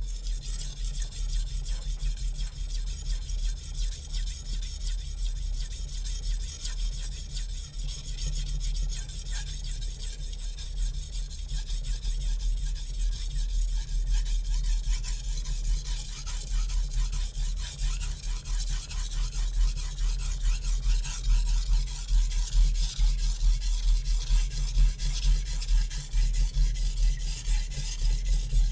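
Shun Classic chef knife's VG-MAX steel edge stroked rapidly back and forth on a Naniwa Super Stone 400-grit whetstone: a continuous gritty rasping of quick, even strokes, a little louder near the end. The steel is hardened to 61 Rockwell and is slow to raise a burr on this coarse stone.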